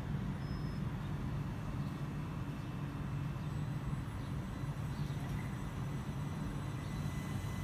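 Class 377 Electrostar electric multiple unit drawing slowly into the platform, giving a steady low hum and rumble with faint high tones above it.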